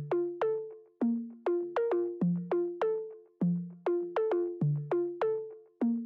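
Background instrumental music: a melody of short, quickly fading notes over a lower note about every second.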